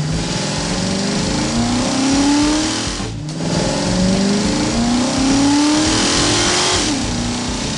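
Cartoon vehicle engine sound effect revving, rising in pitch again and again over a steady rushing noise, with a short break about three seconds in.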